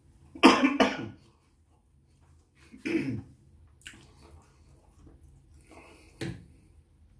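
A man coughing: a quick double cough about half a second in, another cough about three seconds in, and a shorter one near the end.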